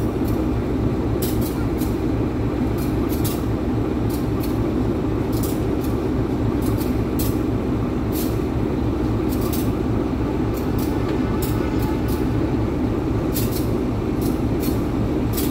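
Diesel-electric locomotive idling close by: a steady low rumble, with scattered sharp clicks.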